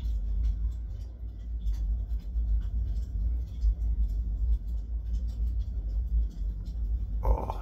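Soft puffing on a Kaywoodie briar pipe, with faint light clicks of the lips on the stem over an uneven low rumble. Near the end comes a brief hum or voiced sound.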